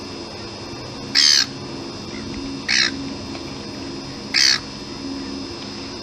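Gull calling: three short, harsh squawks about a second and a half apart, over steady background noise.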